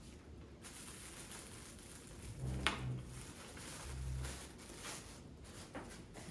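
Quiet room noise with one sharp knock about two and a half seconds in and a few fainter clicks after it.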